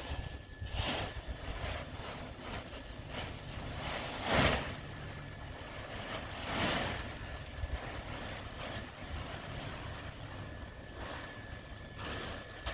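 Wind buffeting the microphone: a steady low rumble with a few louder rushing gusts, the strongest about four seconds in.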